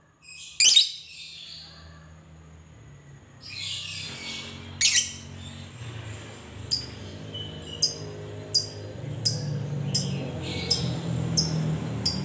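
Fischer's lovebird calling: a few loud shrill calls, then a string of short sharp chirps about every two-thirds of a second. A low vehicle rumble builds in the background from about four seconds in.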